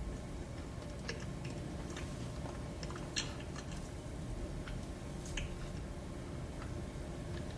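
Close-miked eating sounds: soft chewing with scattered small wet mouth clicks. A sharper click comes about three seconds in and another just past five seconds.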